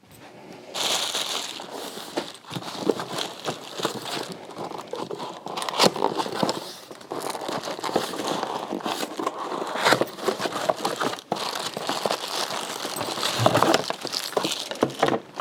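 Plastic packaging crinkling and crackling as it is handled and unwrapped, with scattered sharper crackles.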